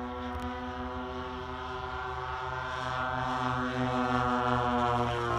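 P-38 Lightning flying overhead, its twin engines droning steadily with a pulsing beat, growing louder toward the end as it comes closer.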